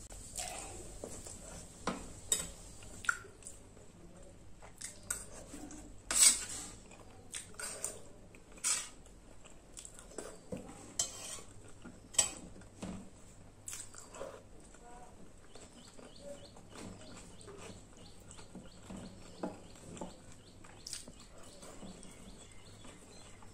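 Steel spoon clinking and scraping against a stainless-steel plate in sharp, irregular clinks, the loudest about six seconds in, with quieter eating sounds between them. Fainter small clicks follow in the second half.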